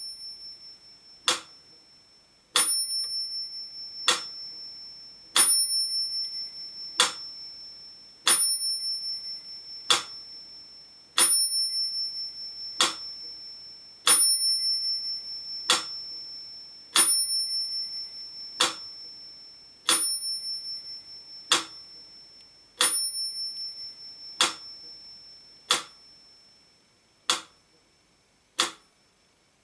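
Mechanical pendulum metronome ticking slowly at 40 beats a minute, with its bell ringing on every second tick. The bell stops about 23 seconds in, and the last few ticks are fainter.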